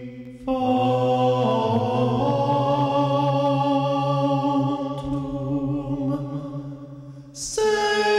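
Voices singing a slow Latin chant in long held notes that step from pitch to pitch. A new phrase comes in about half a second in and another near the end.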